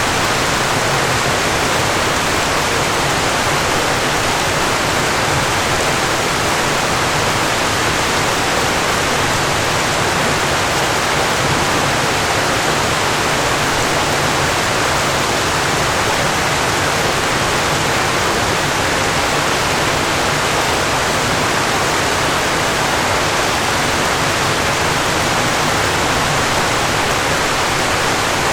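Falling water, a steady, unbroken rush like a waterfall.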